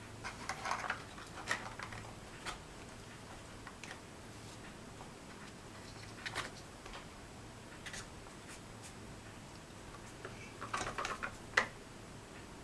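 Light clicks, taps and rustles of thin card kit parts being handled and pressed into place, in small clusters about half a second in and again near the end, over a faint steady hum.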